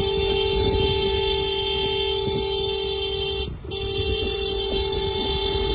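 Motorcycle horn held down in one long steady blare, cut off briefly about three and a half seconds in, then sounded again, over a low rumble.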